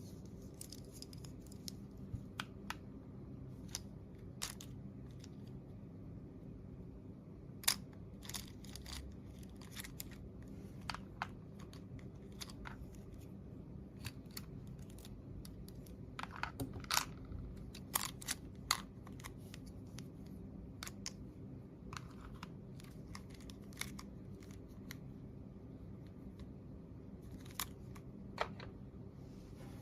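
Small plastic toy pieces and packaging being handled: scattered light clicks, taps and crinkles, busier in the middle, over a steady low hum.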